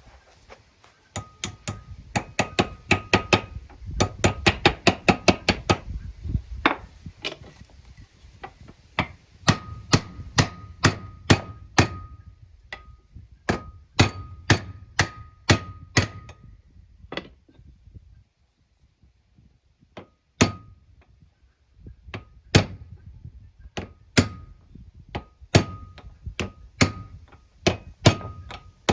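Hammer blows on metal, driving a new ball bearing into place on a wood lathe: fast runs of about four strikes a second, then slower single strikes with pauses between, each strike ringing briefly. The hammer bounces once the bearing is fully seated.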